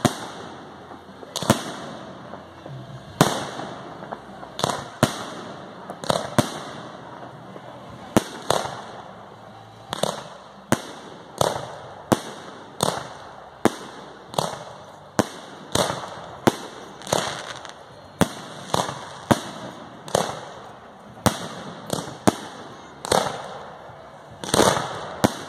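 Fireworks display: aerial shells bursting one after another with sharp bangs, roughly one a second, each trailing off in an echo.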